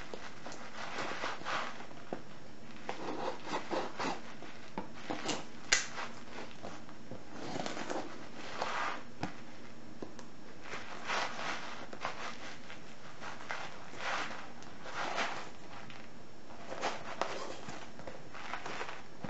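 Parcel packing tape being cut with a penknife and pulled off the box, in irregular scraping, tearing strokes, with one sharp click about six seconds in.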